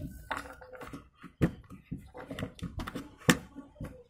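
Large plastic toy building blocks clacking and knocking together as they are handled and pressed onto a stack. A few sharp clacks stand out, the loudest about a second and a half in and just after three seconds.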